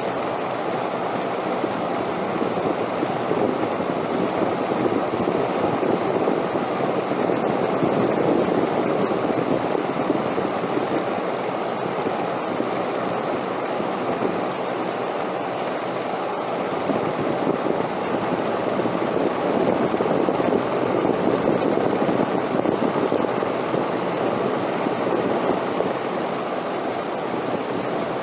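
Steady wind blowing: a dense rushing noise that slowly swells and eases, louder twice, with a faint steady high tone underneath.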